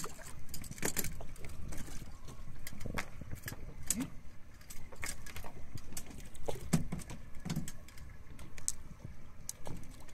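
Steady low rumble of a fishing boat at sea, with scattered sharp clicks and knocks from gear on deck.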